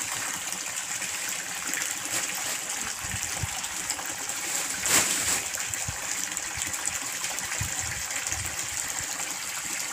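Steady splashing of a water jet from a pipe spout falling onto the surface of a koi tank, with one brief louder noise about halfway through.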